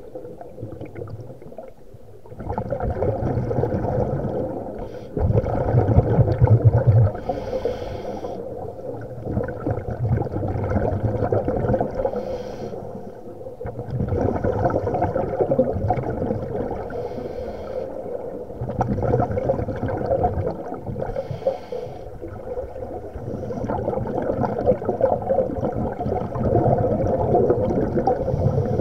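Scuba breathing heard underwater: the hiss of each inhale through the regulator alternating with the rumbling gurgle of exhaled bubbles, in a slow, even cycle of about one breath every four to five seconds.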